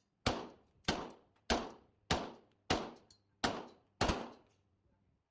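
Glock 17 9mm pistol fired seven times in steady succession, one shot about every 0.6 seconds, with the string stopping a little after four seconds in.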